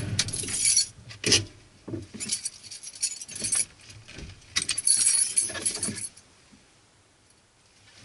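The car's engine cuts off, then a bunch of keys jangles and clinks in several short bursts over about six seconds, falling almost quiet near the end.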